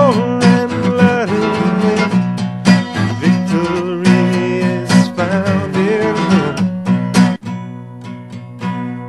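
Music: strummed acoustic guitar with a melody line that slides and wavers in pitch, an instrumental passage of a gospel song. It drops to a quieter level about seven seconds in.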